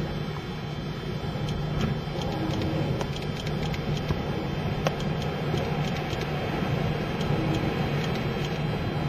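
Storm wind and breaking surf making a steady, dense rumble, with scattered sharp clicks through it.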